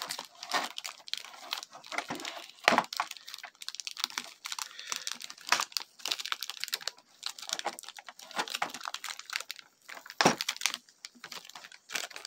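Card packet wrapper being crinkled and torn open by hand: irregular crackling and rustling, with a few louder snaps.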